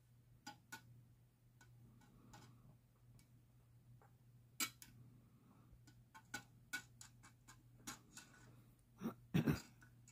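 Faint, scattered small clicks and taps of a nail art tool against a clear plastic cup of water while swirling nail polish on the water's surface, with a louder pair of knocks near the end. A low steady hum runs underneath.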